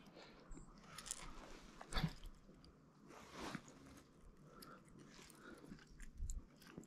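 Faint handling noises: scattered light clicks and rustling crackles, with a sharper knock about two seconds in.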